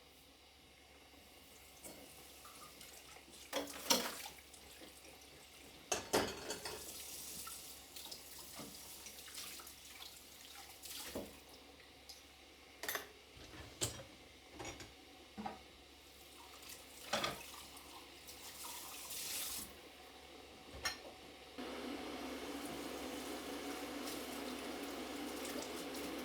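Washing up at a kitchen sink: dishes and utensils knocking and clinking, with short spells of running water. Near the end a tap is turned on and runs steadily.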